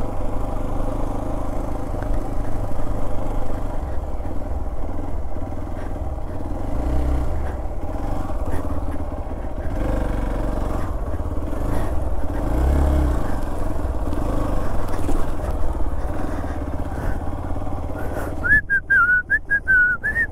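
Motorcycle engine running under way, its note rising and falling twice as the throttle opens. Near the end a high warbling whistle comes in over it.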